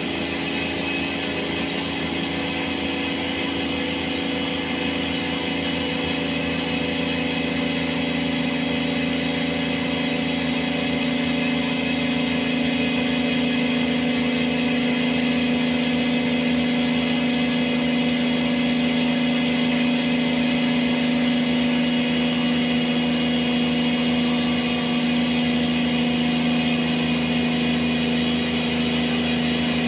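Cotton candy machine's motor running steadily, spinning the spinner head as it throws out sugar floss: a constant hum with a high whine over it.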